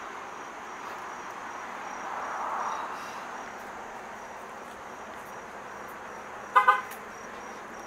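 Outdoor background by a road: a vehicle swells past about two to three seconds in, and an insect chirps in high, even pulses. About six and a half seconds in, a car horn gives a short double toot, the loudest sound.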